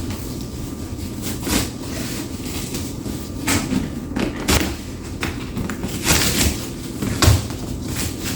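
Large cardboard furniture box being ripped open and handled: a run of tearing, scraping and knocking noises with a few dull thumps.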